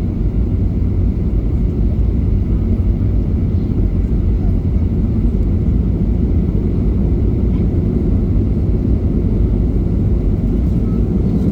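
Steady low rumble inside the cabin of a Boeing 737-800: engine and airflow noise heard from a passenger seat, with no sudden events.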